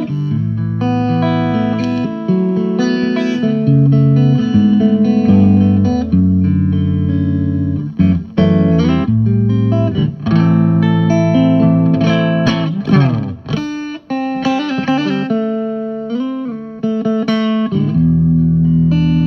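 Electric guitar played with a clean tone, mixing strummed chords and single-note lines. About 13 s in there is a quick slide up and down the neck, and it ends on a held, ringing chord.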